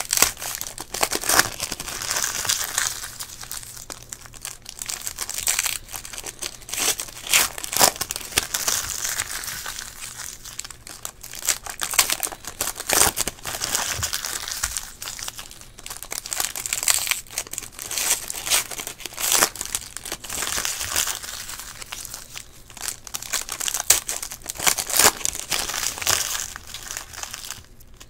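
Foil wrappers of Panini Select basketball card packs crinkling and tearing as the packs are ripped open and handled, an irregular run of sharp crackles.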